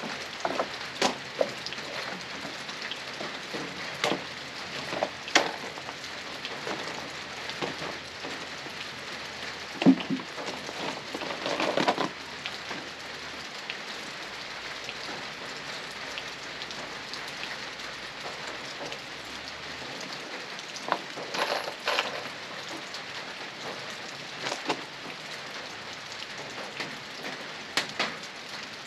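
Steady rain falling, with scattered sharp knocks and clatters every few seconds. The loudest knock comes about ten seconds in.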